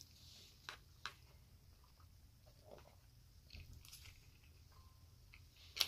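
Faint chewing and mouth sounds of a person eating with a fork, with a few soft clicks scattered through and one sharper click near the end.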